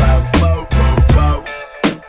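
Upbeat background music with a steady beat, strong bass and plucked, guitar-like notes.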